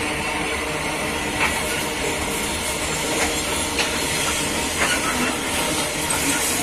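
Freight train's open-top steel wagons rolling past on the rails: a steady rumble and hiss of the wheels, with a few short sharp clicks now and then.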